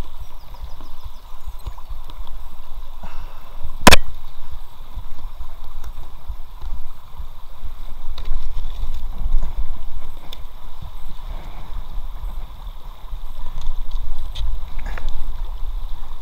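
Shallow brook water rushing and gurgling around an inflatable kayak as it drifts downstream, with a low rumble throughout. One sharp knock about four seconds in.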